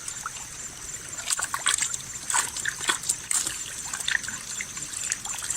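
Water trickling and splashing in small irregular splashes as a fishing lift net is raised and river water drains through the mesh.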